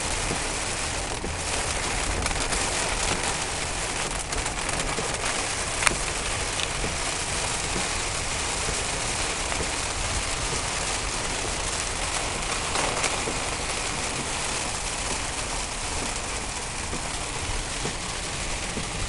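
Heavy rain on a car's roof and windshield heard from inside the cabin, mixed with the hiss of tyres on a wet road, steady throughout; one sharp click about six seconds in.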